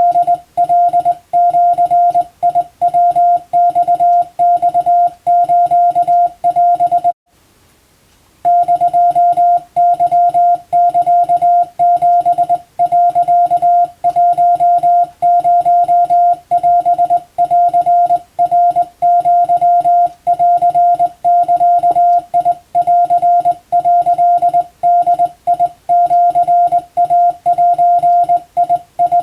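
Morse code (CW) sent as a beep tone of one steady pitch, keyed on and off in rapid dots and dashes: Japanese wabun telegram text for radiotelegraph receiving practice. The keying stops for about a second, roughly seven seconds in, then runs on.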